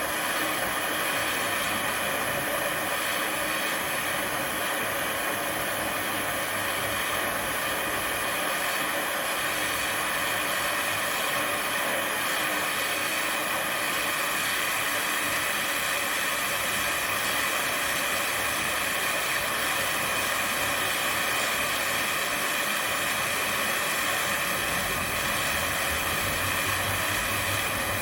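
Steady hiss of a gas burner flame heating a hardened steel steering rod for straightening.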